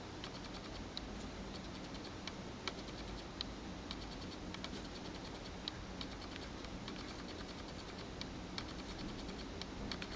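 Quick, irregular light clicks of typing and tapping on an HTC Sensation 4G's touchscreen keyboard, over a faint steady hum.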